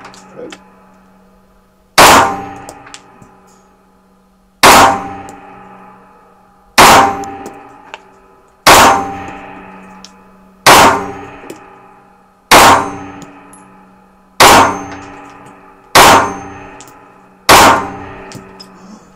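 A Jericho 941 F 9×19 mm pistol fired nine times in slow aimed fire, about two seconds apart. Each shot rings out and echoes in a small indoor range.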